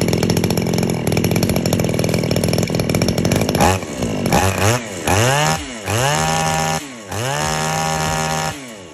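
A STIHL FS3001 brush cutter's small two-stroke engine idles steadily, then is revved repeatedly from about three and a half seconds in. Each rev rises sharply in pitch, holds high and falls back: first a couple of short blips, then three longer held revs.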